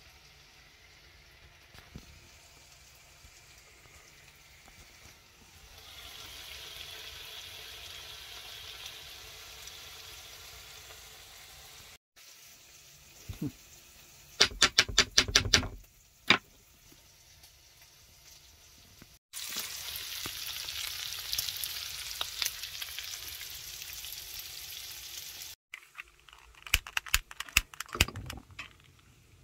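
A knife chops onion on a wooden cutting board in a quick run of sharp strokes. After that comes a louder steady sizzle of food frying, and near the end a run of sharp clicks as a gas stove burner is lit.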